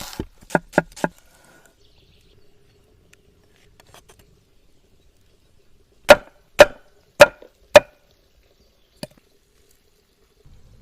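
Blade chopping into wood: a few light strokes at the start, then four hard chops about half a second apart and a last single stroke near the end.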